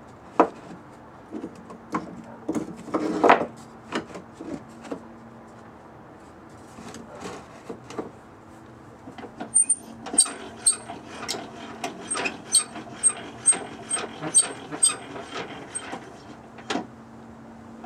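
Steel semi-truck oil filter being twisted by hand on a wooden board against a clamped marker tip, marking a cutting line. First come scattered knocks and scrapes, then about halfway a run of short squeaky ticks, roughly two a second.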